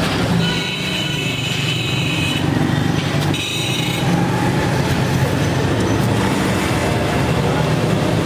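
Busy street traffic with engines running steadily, and a high-pitched tone heard twice in the first few seconds.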